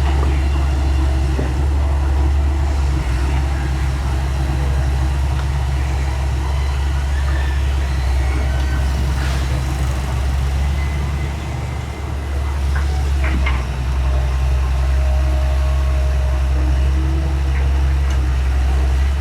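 Excavator's diesel engine running steadily with a deep, even hum, with a few faint knocks.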